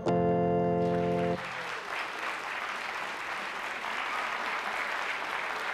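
A click, then a held musical chord lasting about a second and a half that cuts off abruptly, followed by a live audience applauding steadily.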